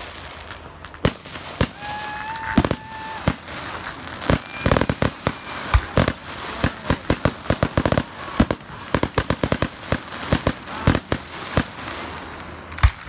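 Fireworks going off: a string of sharp bangs and rapid crackling pops, with a whistling tone lasting about a second, starting about two seconds in.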